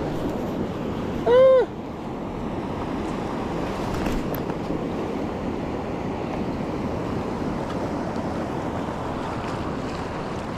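Steady rushing noise of a flowing stream and wind. About a second and a half in comes a short, loud tone that rises and falls in pitch.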